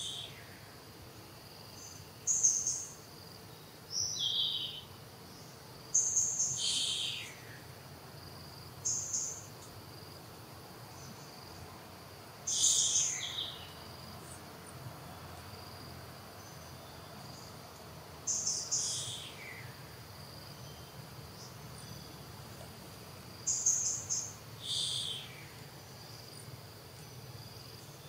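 Short, high-pitched chirping calls from wild animals, repeated about eight times at irregular intervals, several sliding down in pitch at the end, over a faint steady high insect-like hum.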